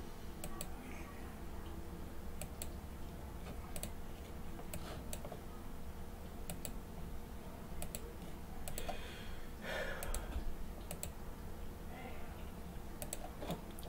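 Irregular clicks of a computer mouse, often in quick pairs like double-clicks, over a faint low hum.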